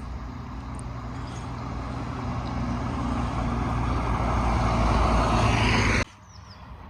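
A road vehicle's engine running and growing steadily louder as it draws closer, then cut off suddenly about six seconds in.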